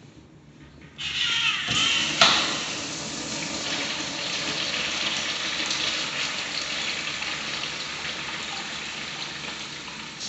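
Commercial flushometer fixture flushing: about a second in the valve opens with a sudden loud rush of water, a sharp crack follows a second later, then a steady hissing rush of water.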